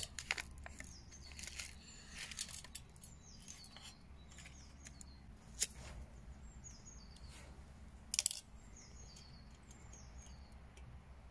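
Foil wrapper crinkling as a Trioxan fuel bar is unwrapped, then a single sharp click of a lighter about five and a half seconds in and another short rustle or clatter about two seconds later. Small birds chirp throughout.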